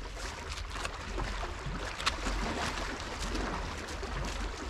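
Steady wind rumble on the microphone and water washing at the rocks, with a few light clicks and knocks from a fishing rod and reel being handled while a fish is played. The sharpest click comes about two seconds in.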